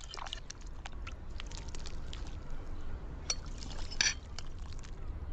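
Red-clawed crab congee bubbling in a clay pot: a stream of small wet pops and ticks over a low hum, with two sharper clinks about three and four seconds in.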